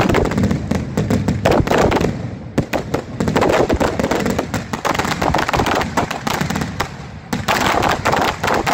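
Aerial fireworks going off in a rapid, nearly continuous barrage of bangs and crackles. There are short lulls about two and a half and seven seconds in.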